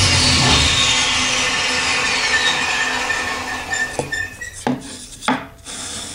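Table saw winding down after a cut through a wooden gear blank, its whine falling steadily in pitch as the noise fades. A few sharp knocks follow near the end.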